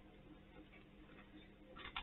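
Near silence, with a short cluster of faint crackling clicks near the end.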